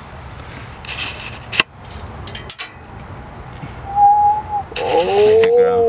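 A few light metal clicks from work on the valve springs and keepers, then a short whistle and a long, loud, dismayed vocal 'ooh' that rises and falls as a valve-spring keeper is dropped.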